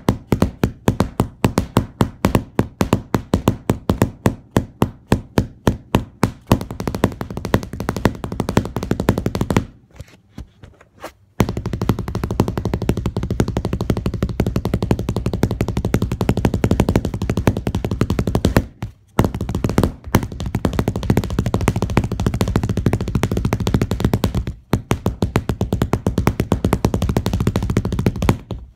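A long stick beating in a fast, even run of loud knocks, several a second, pausing for about a second and a half about ten seconds in and briefly twice more later.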